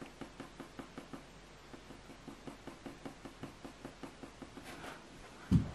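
Graphite pencil (4B Staedtler Mars Lumograph) shading on hot-press watercolour paper in short, quick back-and-forth strokes, about five a second. A dull thump near the end.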